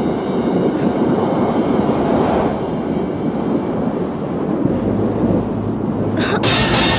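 Rushing wind sound effect, a steady loud noise. A deep rumble joins about two-thirds through, and a short sharp swish comes near the end.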